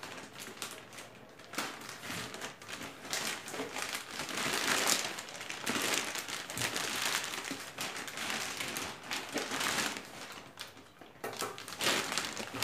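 Plastic mailing bag crinkling and rustling as it is cut open with scissors and pulled apart, with many short crackles throughout.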